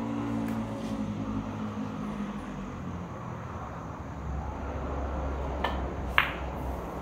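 A pool shot: a light click of the cue tip on the cue ball about 5.5 s in, then, about half a second later, a louder, sharp click of ball striking ball that rings briefly. A low steady hum runs underneath.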